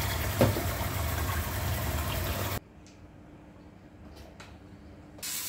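Kitchen tap running hard into a plastic tub of rice as the rice is rinsed; the water cuts off abruptly about halfway through. After a quiet stretch, oil starts sizzling in a hot grill pan just before the end.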